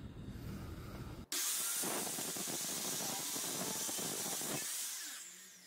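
Makita marble saw fitted with an abrasive metal-cutting disc grinding through a steel threaded rod: a harsh, even hiss that starts suddenly about a second in and fades near the end as the cut goes through.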